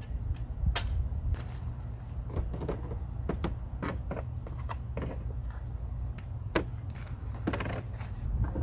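Irregular clicks and knocks of small metal parts and tools being handled, over a low steady hum.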